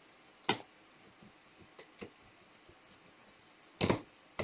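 Quiet room tone with a sharp click about half a second in, a couple of faint ticks, and a brief rustling clatter near the end: small handling noises of cards and packaging on a table.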